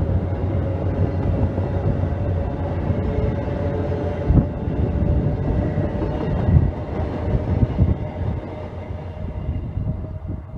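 VIA Rail passenger coaches rolling past at close range: a steady rumble of steel wheels on rail, with a few louder knocks along the way. The sound eases off near the end as the last car pulls away.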